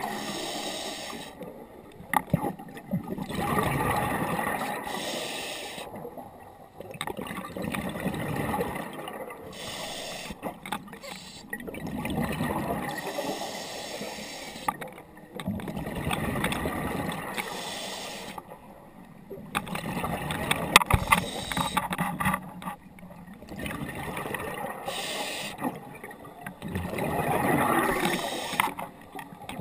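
Scuba diver breathing through a regulator underwater: rushes of exhaled bubbles gurgling in swells about every three to four seconds.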